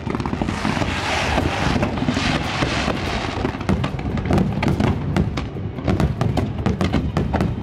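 Fireworks display with rapid, overlapping booms of aerial shells. From about a second in, a dense crackling hiss lasts a couple of seconds, then the quick booms carry on.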